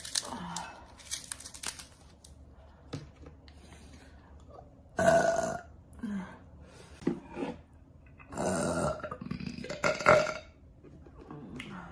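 A woman burping: three loud burps, about five, eight and a half and ten seconds in, the middle one the longest, with fainter short mouth sounds between.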